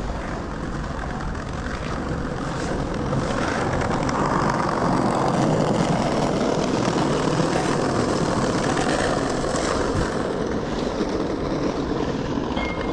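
Open-air city square ambience: a steady rumbling noise, likely traffic and wind, that grows louder in the middle.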